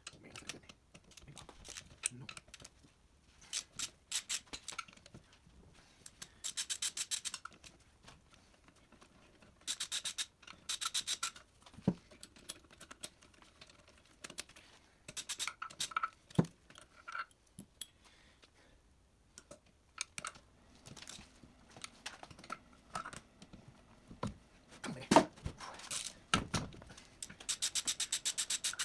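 Hand tools and metal engine parts being worked during a teardown: several short bursts of rapid, even clicking like a ratchet wrench, between scattered knocks and clinks.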